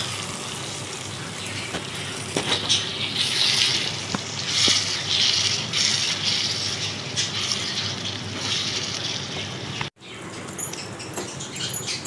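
Minced meat and tomatoes sizzling as they fry in a steel karahi, stirred with a wooden spatula that scrapes and knocks on the pan now and then, while the tomato juices cook off. The sizzle drops out for a moment near the end.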